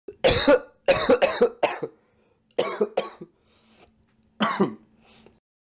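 A person coughing in fits: a run of four harsh coughs, two more a moment later, then one last cough near the end.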